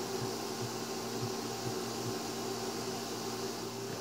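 Steady electrical hum with a fan-like hiss from a running kitchen appliance, with a few faint soft knocks.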